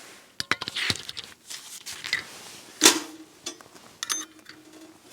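Camp cookware and utensils being handled: a run of small clicks and clinks. The loudest is a sharp metallic clink nearly three seconds in that rings briefly.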